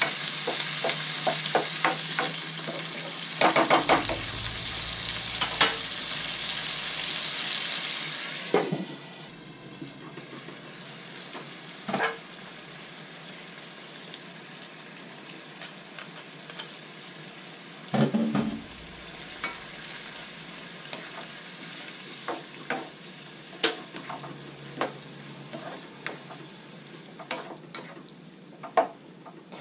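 Broccoli and carrots sizzling in a wok as they are stir-fried, with a utensil scraping and knocking against the pan. The loud sizzle falls away sharply about nine seconds in, leaving quieter stirring with scattered clinks and a few heavier knocks.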